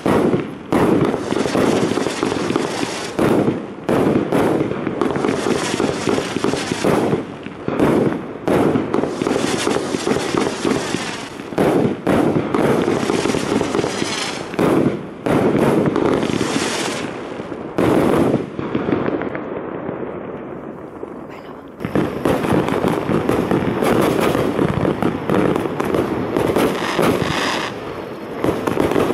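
A 288-shot, 25 mm Lesli 'Mammoth' firework cake firing shot after shot in rapid succession, with launches and bursts running together. The firing fades for a few seconds about two-thirds of the way through, then starts again sharply.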